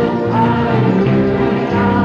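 Orchestral music with held notes that change every half second or so.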